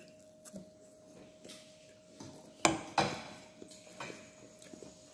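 A fork clinks sharply twice against a plate, about a third of a second apart, with fainter clicks of cutlery around it while cake is being eaten.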